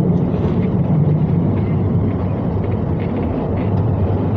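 London Underground train running at speed on open track, heard from inside the carriage: a steady low rumble of wheels and traction motors.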